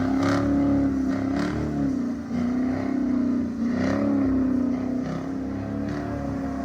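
Car engine revving up and down, its pitch rising and falling several times as the car is driven sliding in the snow.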